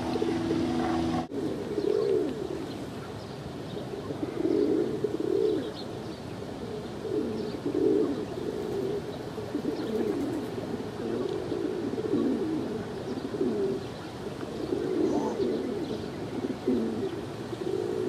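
Feral rock pigeons cooing, repeated low warbling coos one after another. About a second in, a steady hum cuts off suddenly.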